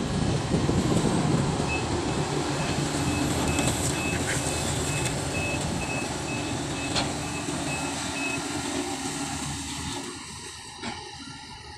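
Sumitomo SH350 excavator's diesel engine running steadily, with a high beeping alarm sounding about twice a second that stops about eight seconds in. The engine sound falls away near the end.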